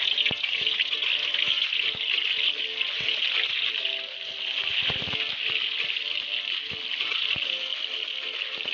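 Tofu blocks frying in hot oil in a wok: a steady, loud sizzle, with scattered knocks and pops as more pieces are dropped in, a cluster of them about halfway through.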